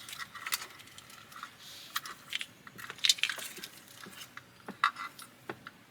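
Plastic wiring-harness connectors and cables being handled and fitted together: a scatter of sharp plastic clicks and rattles, the loudest about three seconds in and again near five seconds.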